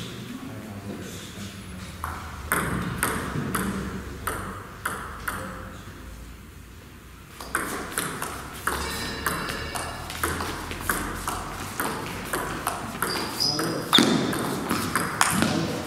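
Table tennis ball clicking off the paddles and the table: a few scattered taps at first, then a quick rally from about halfway through, with one sharp, loud hit near the end.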